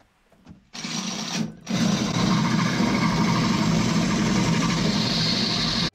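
Electric power tool cutting a hole: it starts about a second in, falters briefly, then runs steadily under load.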